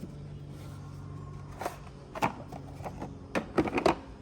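Several sharp clicks and knocks of tools and sockets being handled in a toolbox, the loudest few close together near the end, over a steady low hum.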